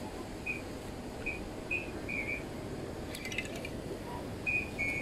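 Steady outdoor background noise with short, high chirps scattered through it, and a brief run of clicks about three seconds in.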